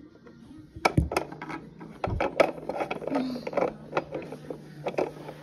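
Hard plastic toy animal figurines clicking and knocking against a wooden tabletop and each other as they are handled, with two heavier thumps about one and two seconds in.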